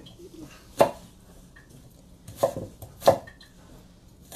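Kitchen knife chopping the last of a diced onion around the root end on a cutting board: four separate knife strikes on the board, spaced unevenly, the last near the end.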